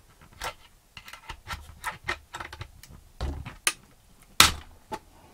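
Plastic back cover of a Romoss power bank being pried up off its casing with a metal pry tool: irregular clicks and snaps of plastic and metal, the loudest about four and a half seconds in.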